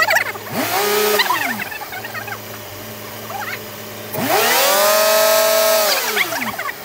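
BMW E36 323i's 2.5-litre straight-six idling, revved up by hand at the throttle: a short blip about half a second in, then a longer rev held for about two seconds from about four seconds in, dropping back to idle. The engine is being run and revved to bleed air out of the cooling system after the coolant was refilled.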